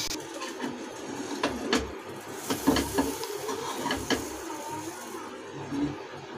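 A flat spatula scraping and knocking against a nonstick frying pan as a cooked pizza is slid loose and lifted out: a string of short scrapes and taps.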